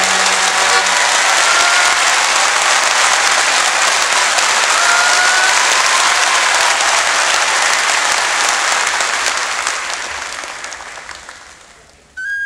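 Large audience applauding, with a couple of short rising whistles, the applause dying away over the last few seconds. A flute tune starts just at the end.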